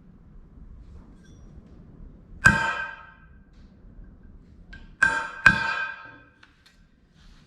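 Steel plate clanging three times, about two and a half seconds in and then twice in quick succession about five seconds in, each strike ringing out briefly.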